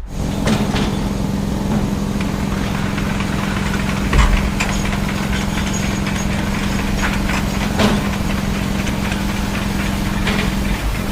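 Large diesel engine of a bulldozer idling steadily with a low hum, with a couple of sharp knocks about four and eight seconds in.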